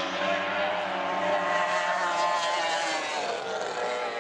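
Racing outboard engines running flat out, a steady high whine whose pitch sags slightly about three seconds in.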